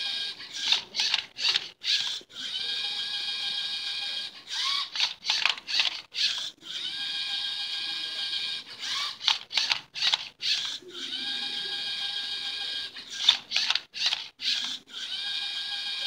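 LEGO Mindstorms EV3 robot's electric motors turning and tipping a Rubik's cube: spells of steady high whine, each about two seconds long, alternate with quick runs of plastic clicking and clacking as the cube is shifted, repeating about every four seconds.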